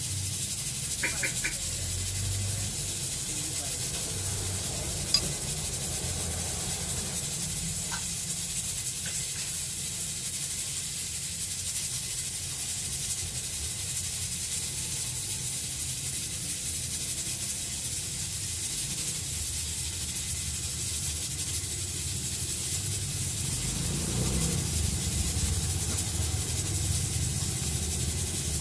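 Steady hiss under the faint sounds of a person eating rice and fish with their fingers, with one sharp click about five seconds in.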